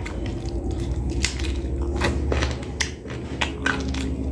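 A man gnawing and sucking on a chicken bone held to his mouth: scattered sharp, wet clicks and small crunches over a low steady hum.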